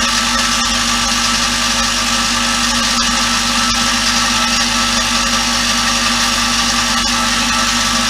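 Ultrasonic cleaner running with a steady, even buzz and hiss, with carburetor parts in its heated bath for cleaning.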